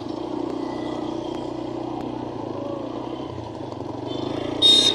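Motorcycle engine running steadily while riding, with road and wind noise. A short, loud, high-pitched sound comes near the end.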